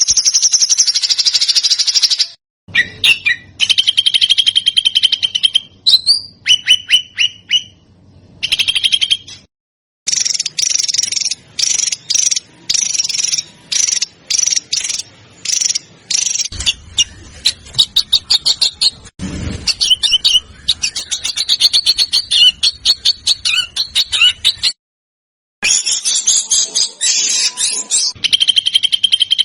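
Recorded small songbird calls spliced together: fast runs of sharp, high chips and trills with a few held whistles, breaking off abruptly into short silences three times.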